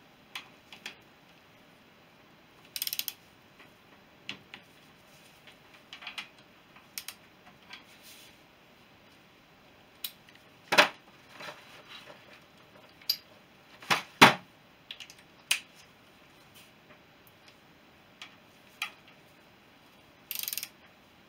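Socket ratchet clicking in two short runs while the crankcase bolts are done up, with a few sharp single metallic clicks and knocks of tools on the case in between.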